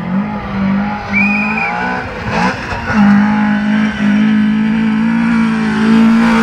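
Rally car engine running hard at high revs on a gravel stage, its note breaking briefly about one and two and a half seconds in, then holding steady as the car closes in.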